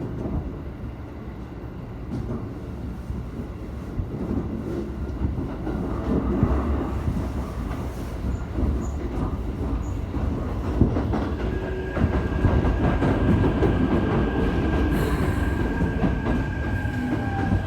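Keikyu 1000-series train running heard from inside the car: a steady rumble of the wheels on the rails with scattered knocks over rail joints, growing louder. About two-thirds in, a steady high-pitched wheel squeal sets in and holds.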